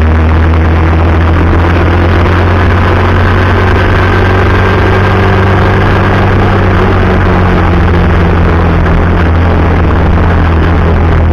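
Heavy bus diesel engine running steadily at road speed, a loud, even, low drone.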